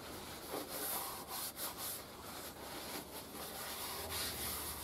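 A lint-free workshop towel rubbed around inside a freshly honed V8 cylinder bore in repeated wiping strokes, cleaning out the honing residue and oil.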